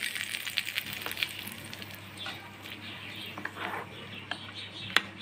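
Hot tempering oil sizzling in coconut-peanut chutney, dying away over the first couple of seconds, then a steel spoon stirring the chutney in a glass bowl, with soft scraping and a few sharp clinks against the glass, the loudest near the end.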